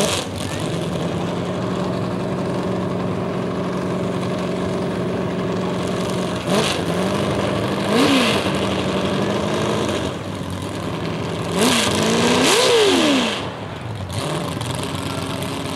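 A mud-drag vehicle's engine running steadily at low revs, then revved sharply four times, each rev rising and quickly falling back, the last one the biggest.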